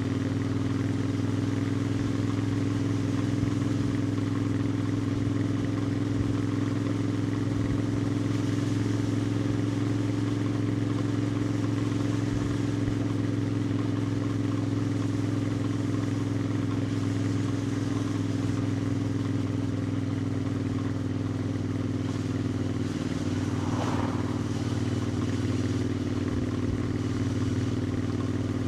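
Royal Enfield Interceptor 650's 648 cc parallel-twin engine and exhaust running at a steady cruising speed, with little change in revs.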